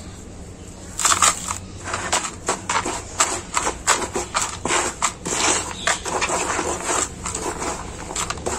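Gloved hands squeezing and crumbling dry, gritty soil with small pebbles: irregular crunching and grinding, starting about a second in.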